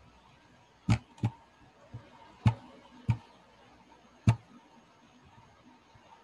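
Computer mouse clicks, five sharp single clicks at uneven intervals, the first two close together, in the first four and a half seconds.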